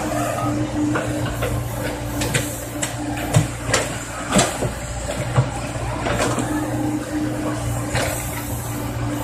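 Komatsu PC70 excavator's diesel engine running steadily under digging load, with a string of sharp knocks and clanks from the bucket working the soil between about two and five and a half seconds in.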